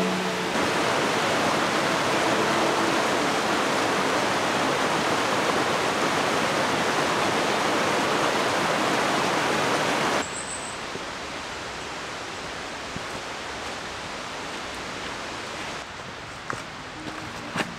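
Mountain stream rushing steadily over rocks for about ten seconds, then cutting abruptly to a quieter, softer rush of water. A single short high chirp follows the cut, and a few light taps come near the end.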